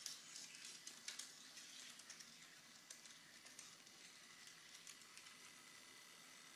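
Near silence: a faint hiss with scattered soft crackles and ticks, thinning out about three seconds in.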